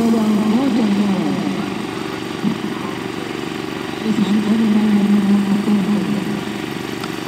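A portable generator's engine running steadily under a voice that calls out in long, drawn-out tones, first at the start and again about four seconds in.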